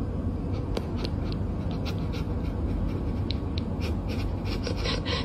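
A cat's paws scratching and rubbing on a dresser top: a series of short, light scrapes that come thicker in the second half, over a steady low rumble.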